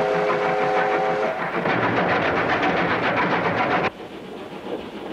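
Steam train sound effect: a steam whistle sounding a steady chord for about the first second, over the fast, even rhythmic chugging of the running train. A little under four seconds in it drops suddenly to a quieter, duller rumble, the train heard from inside the carriage.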